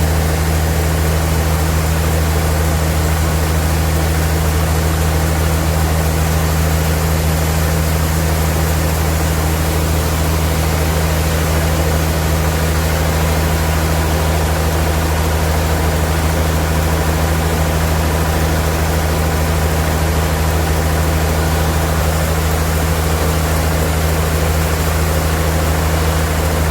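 Sawmill machinery running steadily: a constant low hum with an even hiss over it.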